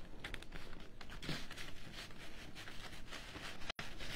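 Dry twig wreath and jute rope rustling and crackling under the hands as the rope is pushed through the woven twigs, a run of small scratchy clicks. The sound cuts out for an instant near the end.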